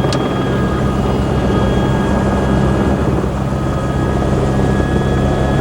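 Helicopter engine and rotor drone heard from inside the cabin: a loud, steady low hum with thin, steady high whines over it. A short click right at the start.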